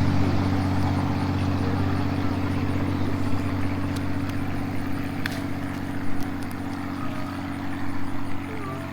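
Engine droning steadily and slowly fading away, with a few light clicks about four to six seconds in.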